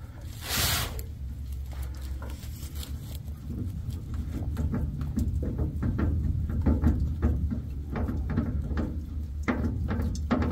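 Oily hands and a rag working an undrained spin-on oil filter loose on a diesel engine, with rustling, squishing and irregular small clicks. Oil pattering out of the filter onto cardboard below, with a short splash-like burst just under a second in.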